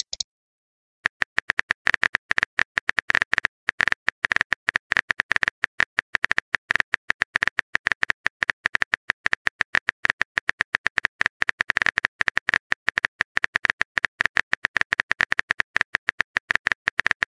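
Phone keyboard typing sound effect: a fast, irregular run of key-tap clicks that starts about a second in.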